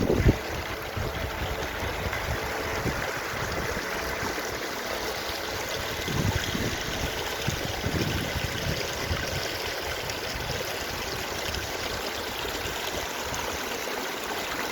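Mountain stream running steadily, a continuous rushing of water, with a few brief low rumbles near the start and again partway through.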